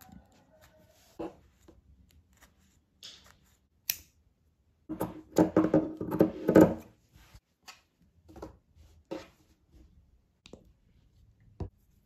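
Scissors cutting through coarse burlap, a dense run of snips lasting about two seconds midway, with scattered light taps and handling sounds around it.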